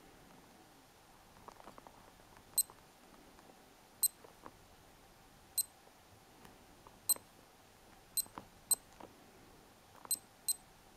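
Kessel 7 Melodies Chrono digital quartz watch beeping as its push-buttons are pressed: eight short high-pitched beeps, some in quick pairs, while it is switched into stopwatch mode and the stopwatch started. Faint clicks of the buttons come between them.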